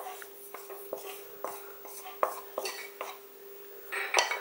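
Wooden spatula tapping and scraping cornstarch off a ceramic plate into a bowl: a run of light, irregular clicks, with a louder clatter about four seconds in.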